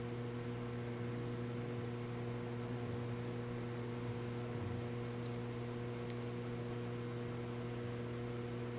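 Steady electrical mains hum over a constant background hiss, with a couple of faint ticks in the second half.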